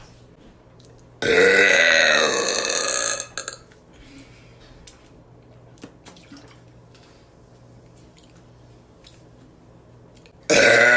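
A woman's long, loud burp lasting about two seconds, starting just after a second in, then a second loud burp beginning near the end.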